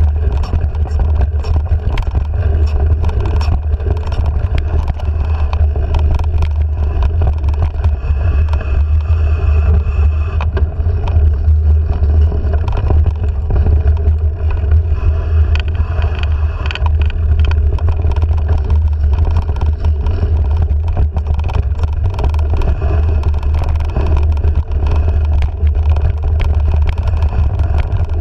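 Mountain bike riding over a dirt singletrack, heard through a handlebar-mounted action camera: a steady heavy low rumble of wind and trail vibration on the microphone, with frequent small clicks and rattles from the bike.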